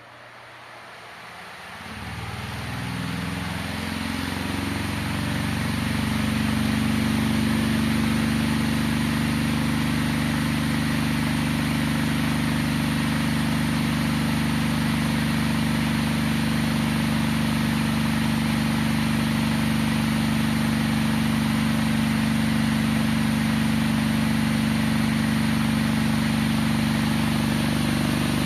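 Cadence electric fan with a coloured propeller starting up. Its motor hum rises in pitch for a few seconds as the blades spin up, then it runs steadily with a strong rush of air.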